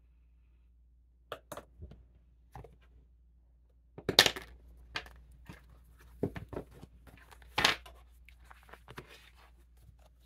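Tarot cards being handled on a wooden table: irregular short snaps, slaps and rustles of cards, loudest about four seconds in and again near eight seconds.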